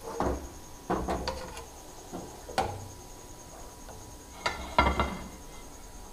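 A spoon knocking and scraping against a karahi and plate, about five sharp clinks spread a second or so apart, as browned fried onions are lifted out of the oil.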